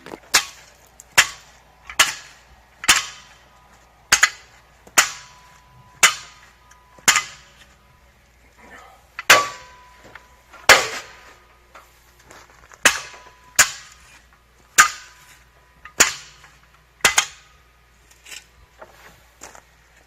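Nails being driven into wood for the hutch frame: a series of sharp, loud strikes about one a second, with a short pause partway through and a few lighter knocks near the end.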